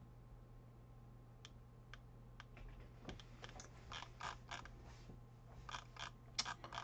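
Faint clicking of a computer mouse and its scroll wheel: a few separate clicks at first, then a denser run of clicks from about two and a half seconds in.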